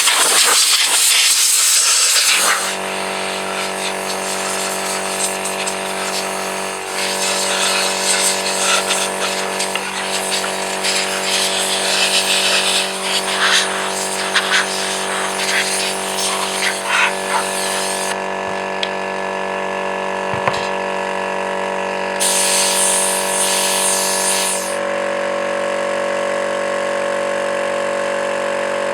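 Pressure washer running: a steady motor hum under the loud hiss of the water jet, which stops for a few seconds and then starts again, and the hum changes pitch near the end.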